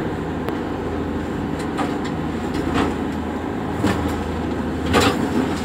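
Rescue boat's engines running steadily, heard inside the wheelhouse, with irregular knocks and splashes as the boat slams through rough seas; the loudest hit comes about five seconds in.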